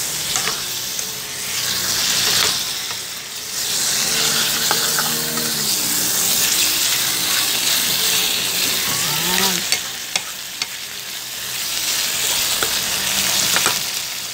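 Pork pieces sizzling in hot oil and tomato paste in a nonstick pan, stirred and turned with a spatula, with a few sharp clicks of the spatula against the pan about two-thirds of the way in and near the end.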